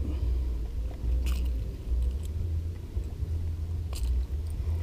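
A low, uneven rumble, with two faint clicks: one about a second in and one near the end.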